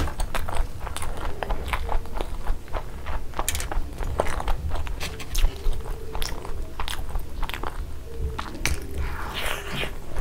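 Close-miked chewing and biting of fried eggs: irregular wet mouth clicks and small crunches, over a steady low hum.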